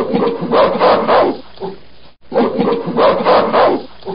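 Gorilla calls from a recording: a clip of rough calls about two seconds long, played twice in a row.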